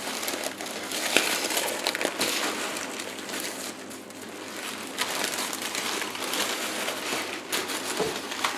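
Packing paper crinkling and rustling as hands rummage through it in a cardboard box, with irregular small crackles throughout.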